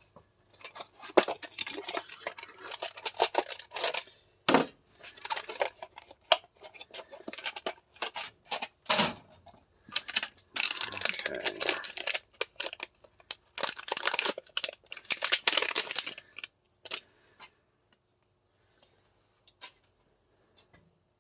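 An airsoft 2011 pistol and its small parts being handled on a bench, giving runs of light metallic clicks, clinks and rattles that stop about four seconds before the end.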